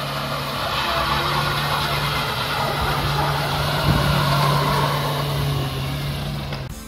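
Small panel van's engine held at high, steady revs as it pulls away, with one brief louder moment about four seconds in. The sound cuts off suddenly near the end.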